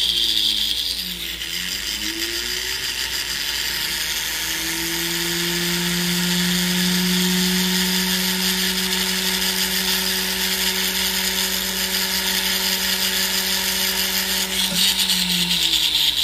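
Jeweler's rotary tool grinding and smoothing a soldered chain link. Its motor whine glides up and down in pitch at first, holds steady through the middle, and changes speed again near the end.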